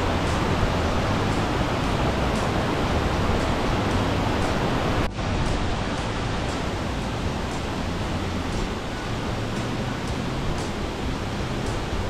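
Large waterfall and its rocky stream rushing: a steady wash of water noise that drops out briefly about five seconds in.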